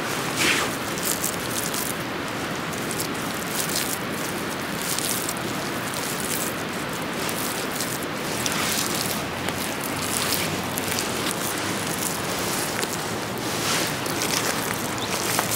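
Bare hand scraping and scooping loose soil, a few short scratchy strokes, over a steady rushing background noise.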